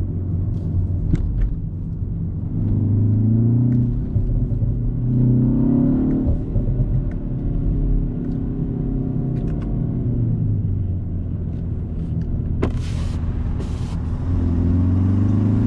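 BMW X1 M35i's turbocharged B48 four-cylinder engine heard from inside the cabin, pulling up through the revs three times and falling away off the throttle in between. A few sharp exhaust pops come on the gear changes and lift-offs.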